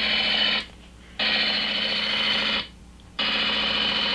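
Sound effect of a model train's brake line being charged with air for a brake test: a steady sound full of held tones that cuts on and off, sounding for about a second and a half, then stopping for about half a second, three times.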